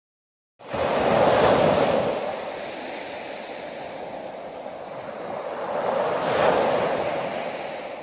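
Small sea waves breaking and washing up a sandy beach. After a moment of silence the surf swells in twice, about five seconds apart, each wash rising and then fading.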